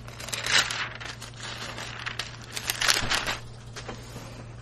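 Thin Bible pages rustling and being turned, in two main bursts with smaller rustles between, as the verse is looked up; a steady low hum runs underneath.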